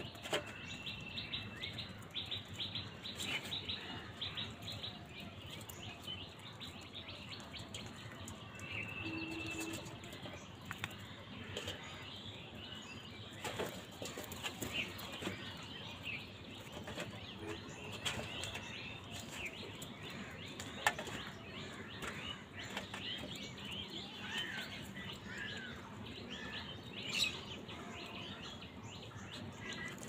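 A flock of house crows feeding: wing flaps, scuffling and many short taps and clicks, with a few short bird chirps and calls now and then.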